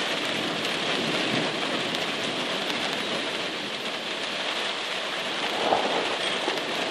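Heavy rain falling steadily during a thunderstorm, with thunder rumbling low under it.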